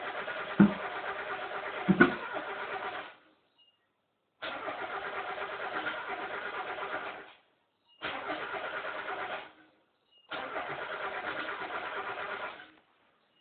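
Mazda Miata's four-cylinder engine cranked on the starter in four separate tries of a few seconds each, turning over rhythmically but not catching. This is a no-start: it cranks but won't fire. Two loud thumps sound during the first try.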